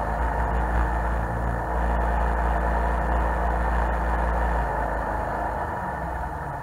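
Jet boat's engine running steadily under way, a low drone with the rush of water and hull noise over it, easing off a little near the end.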